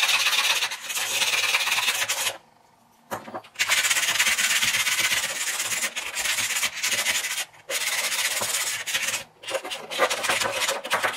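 Sandpaper rubbed by hand in quick back-and-forth strokes over the stainless steel handle parts of a Zero Tolerance 0560 folding knife, smoothing rough edges and the jimping. The scratching stops for under a second about two and a half seconds in, then carries on with a couple of brief breaks.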